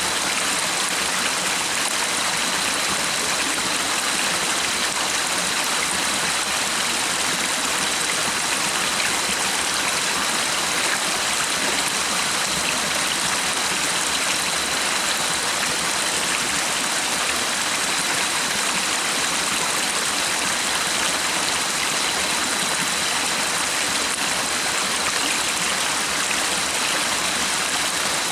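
Stream water rushing and babbling steadily, with a faint, thin high tone held underneath.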